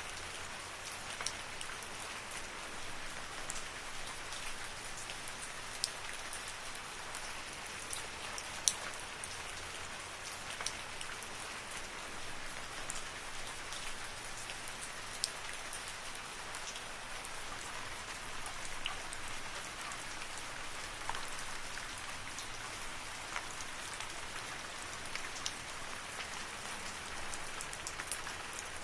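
Steady rain falling in a forest, a constant hiss with scattered sharper drips striking close by.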